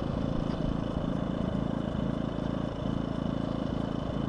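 DuroMax XP2000is inverter generator idling with no load: a steady small-engine drone with a faint high whine over it.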